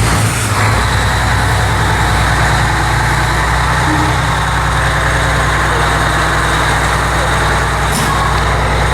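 Fire truck's diesel engine running at a steady idle, just started, settling within the first second.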